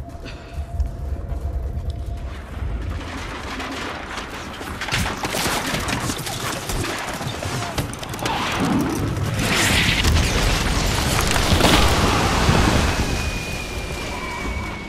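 Battle sound effects: dense gunfire and explosions that build from a low rumble and are loudest in the second half, with a thin high tone sliding slowly down near the end.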